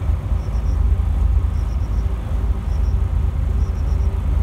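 Steady low rumble aboard a small fishing boat at sea, with faint short high chirps in little groups of two to four about once a second.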